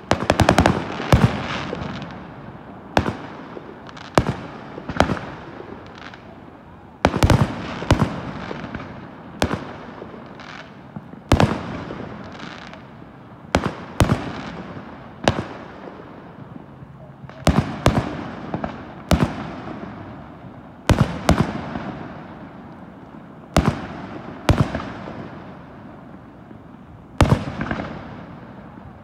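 Aerial firework shells bursting overhead one after another, sharp bangs every second or two, each followed by a short echoing tail.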